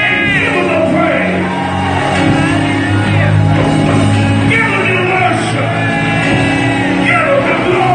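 Live gospel band music, with steady held bass notes, and a voice singing out over it in long held notes through the sound system.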